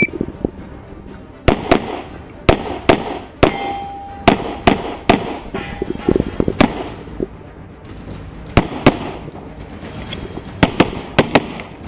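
Pistol shots fired in rapid succession, mostly in quick pairs with short pauses between them: well over a dozen sharp, loud reports.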